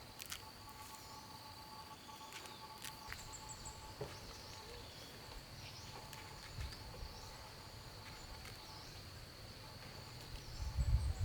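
Faint rural ambience: a steady high insect drone with a few short bird chirps and scattered small clicks. A low rumbling noise rises near the end.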